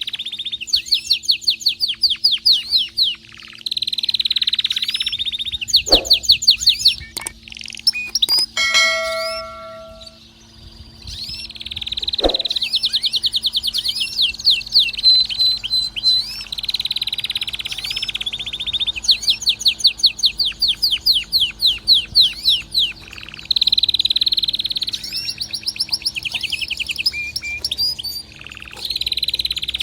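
Male domestic canary in breeding condition singing loudly in long phrases of rapid trills and rolling repeated notes, with a pause about eight to eleven seconds in. A faint steady hum runs underneath.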